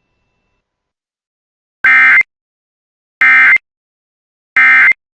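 Emergency Alert System end-of-message signal: three identical short bursts of SAME digital data tones, evenly spaced just over a second apart, marking the end of the alert broadcast.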